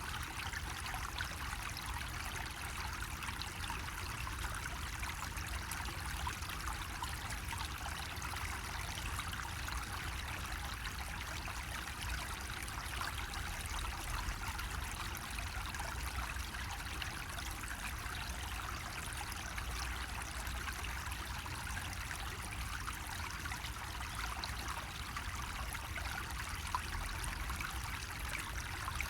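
Water running steadily from a bamboo faucet, an unbroken trickling splash with a low rumble underneath.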